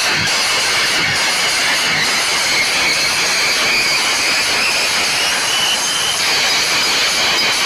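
Loud, distorted DJ dance music with crowd shouting mixed in. A faint beat about once a second fades out after about two seconds, leaving a dense noisy wash with a few held high tones.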